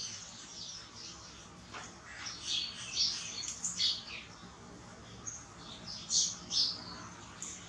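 Short, high-pitched animal chirps and squeaks, a handful of them scattered over a few seconds, the loudest at about three to four seconds in and again just past six seconds.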